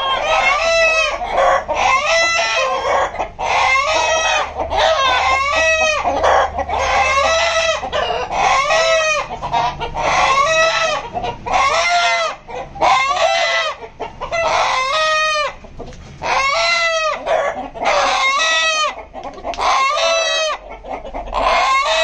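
A flock of caged native (nati) chickens squawking: loud repeated calls, each rising and falling in pitch, about one a second with hardly a break. It is the call the whole flock raises when one bird is taken hold of.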